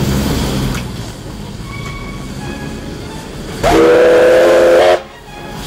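Steam locomotive's whistle sounding one steady blast of a little over a second near the end, loud over the noise of the running train.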